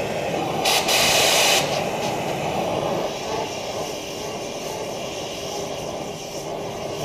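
Oxy-fuel torch flame rushing steadily as it heats the old rubber bushings in the E36's rear suspension to burn them out, with a louder hiss for about a second near the start.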